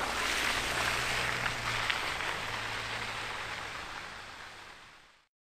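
Ford Ranger Raptor's 2.0-litre bi-turbo diesel pulling away down a muddy track: a hiss of tyres through wet mud and puddles, with a few splashes, over a low engine hum. It fades steadily as the truck drives off, then cuts off near the end.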